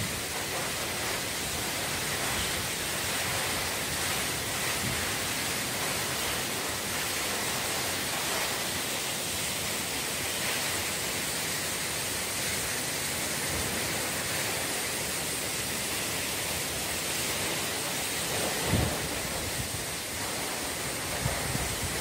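Steady rush of a tall waterfall's falling water, an even noise with no break, with a brief low thump near the end.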